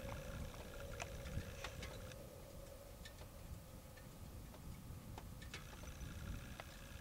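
Engine of a C8 tracked snow vehicle running at a distance as it hauls a load of logs across the snow: a low, steady rumble, with a faint steady whine during the first few seconds and scattered sharp clicks.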